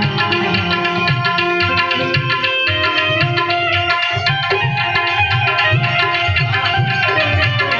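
Indian folk music: tabla playing a steady rhythm under a sustained melody line.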